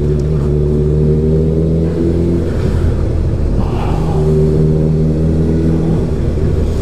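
Honda CB1000R's four-cylinder engine running at low, steady revs while the motorcycle rolls through town. A little past two seconds in the engine note wavers and changes with the throttle, then settles into a steady note again.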